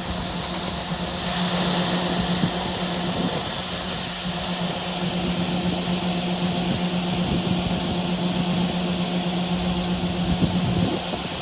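Farm machinery running steadily: a constant engine drone with a steady high whine above it.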